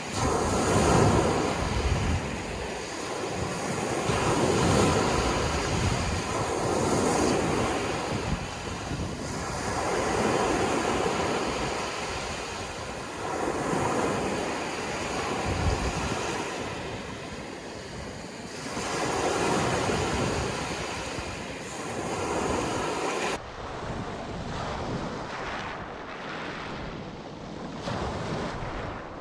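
Sea waves breaking and washing up a shell-and-pebble beach, the surf swelling and falling about every three seconds, with wind buffeting the microphone. About four-fifths of the way in, the sound changes abruptly to surf breaking on a stony beach, duller in the highs.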